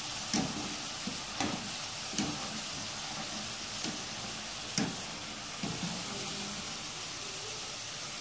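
Potato fries deep-frying in hot oil in a wok, a steady sizzle, while a wire-mesh spider strainer stirs them and knocks lightly against the pan about six times.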